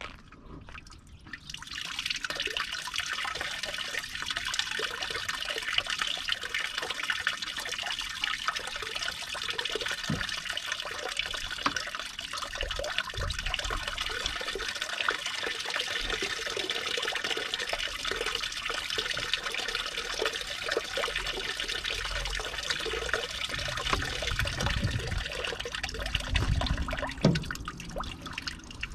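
Flush water running through a car radiator and pouring out underneath into a drain container, a steady splashing that starts about a second and a half in; the cooling system is being rinsed with clean water.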